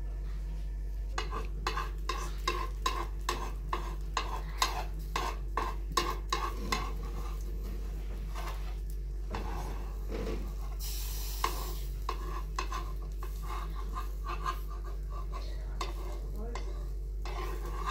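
A spatula scraping and knocking against a metal frying pan while a flat batter bread fries with a light sizzle. The strokes come quickly, about two or three a second, in the first several seconds, pause near the middle, and pick up again later.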